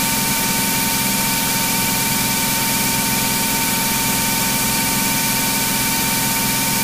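Cirrus SR22's six-cylinder Continental engine and propeller running steadily at climb power, heard inside the cabin as an even drone and hiss with a few steady high tones.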